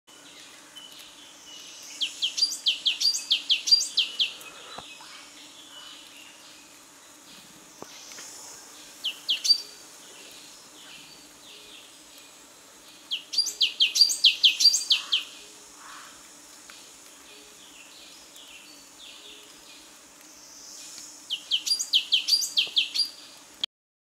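A songbird singing in repeated phrases of rapid, high, sharp notes, each falling in pitch. There are three long bursts of about eight to ten notes and one short burst of two or three notes, with pauses of several seconds between them.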